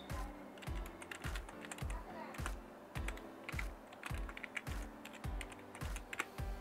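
Computer keyboard keys clicking in quick runs as an email address is typed. Background music with a steady low beat plays underneath.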